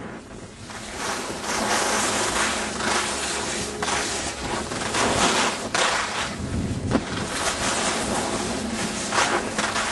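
Wind rushing over the microphone of a camera carried by a skier on the way downhill, with the hiss of skis on packed snow, swelling and easing in surges.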